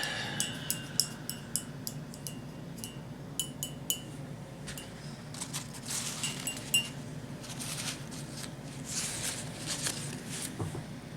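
Small tools clinking and tapping against a plate while polymer clay is worked on it: a quick run of sharp clinks in the first few seconds, then longer scraping and rubbing sounds.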